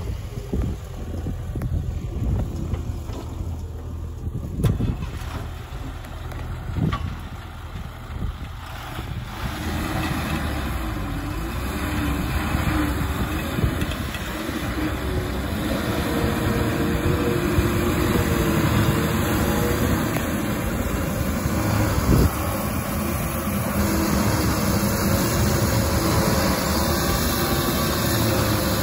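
Laden Ashok Leyland lorry's diesel engine running, first fairly quiet, then louder from about a third of the way in as the lorry drives off over rough ground and passes close by. A few sharp knocks sound in the first part.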